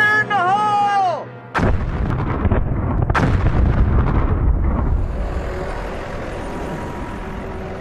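Two small explosive blasting charges detonating in frozen rock about a second and a half apart, each a sharp bang followed by a rumble of falling debris that slowly dies away. A long drawn-out shout comes just before the first bang.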